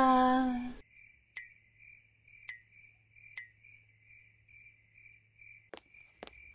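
A short voiced exclamation at the very start, then crickets chirping in a steady pulsing rhythm. A few footsteps begin near the end.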